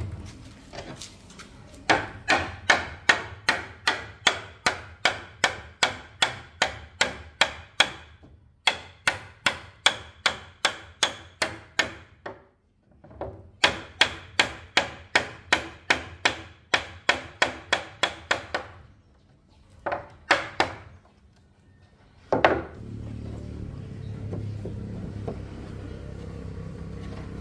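Hammer blows on wood, struck in a steady rhythm of about two to three a second in three long runs with short pauses between them, then a few single knocks. A steady low noise runs through the last few seconds.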